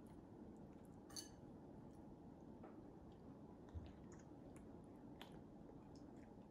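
Near silence: room tone with a few faint wet clicks and smacks from a toddler sucking and licking his fingers, and one soft low thump near the middle.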